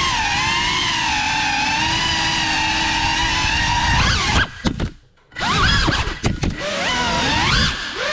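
FPV cinewhoop drone's motors and ducted 3.5-inch propellers whining in the air, steady at first, then rising and falling in pitch with the throttle. Around five seconds in the throttle is cut and the whine drops almost to nothing, then it is punched back up in quick rising swoops, with another brief dip near the end.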